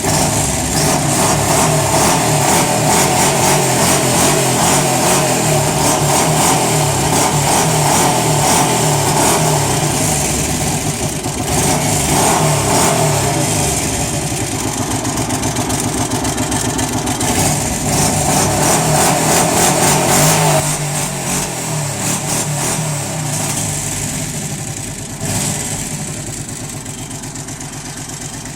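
Arctic Cat 650 V2 ATV's V-twin engine running with a loud noise from the engine, a fast, even, clattering rhythm whose cause the owner does not know. It is loudest in the first two-thirds and eases off somewhat after that.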